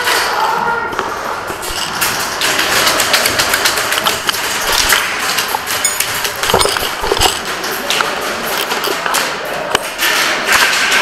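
Scattered taps, clicks and knocks of an indoor airsoft game: airsoft guns firing and BBs striking walls and props, with a short run of rapid ticks about six seconds in.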